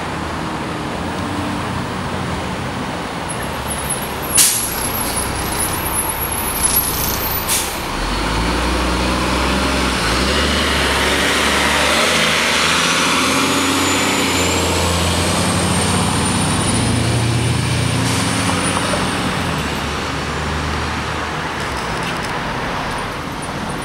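1998 Gillig Phantom transit bus with its Cummins M11 inline-six diesel and Allison B400R automatic, pulling away and passing close by. Two short sharp air-brake hisses come in the first few seconds. The engine's low rumble builds about eight seconds in and stays strong as the bus goes past, while a high whine rises in pitch as it accelerates away.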